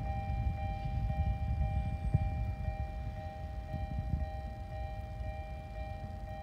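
Railway level-crossing warning bell ringing, an evenly repeating electronic two-tone ding that carries on steadily, over a low rumble of wind or distant rail traffic.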